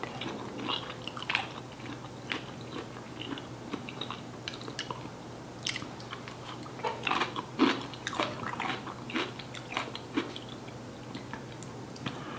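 Close-up chewing and mouth sounds of a person eating curry with rice and potatoes, with irregular wet smacks and clicks.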